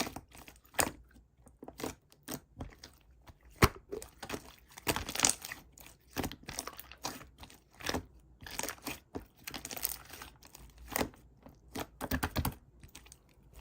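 Slime being worked by hand, giving irregular crackling, crunching pops with short pauses between them.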